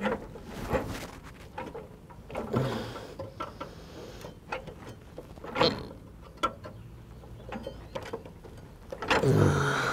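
Adjustable wrench clicking and scraping against a riding mower's steel blade while the bent blade is levered back into shape: irregular metal clicks and scrapes with a sharper knock about five and a half seconds in. A short voice is heard near the end.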